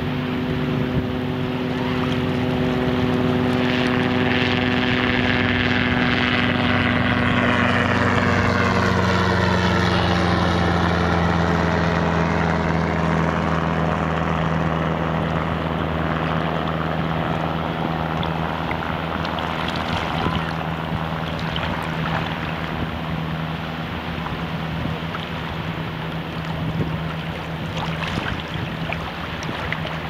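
An engine passing by: a steady motor drone whose pitch drops as it goes past about a third of the way in, then holds lower and slowly fades. Wind and water noise run beneath it.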